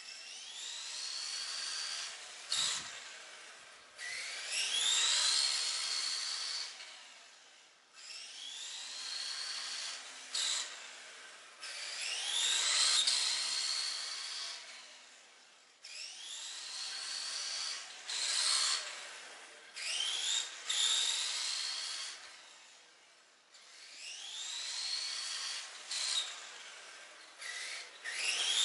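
Tamiya TT-01 electric RC car with a Tamiya Light-Tune brushed motor running laps on asphalt. The whine of the motor and gears rises steeply in pitch each time it accelerates, then swells and fades as the car comes near and moves away, about every eight seconds.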